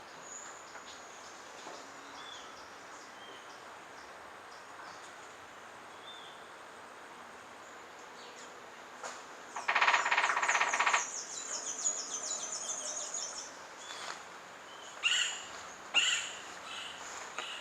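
A male rufous-winged woodpecker drums a rapid roll, about a second and a half long, some ten seconds in. Fast, high, falling chirps follow, then two short, sharp calls near the end, over faint bird calls in the background.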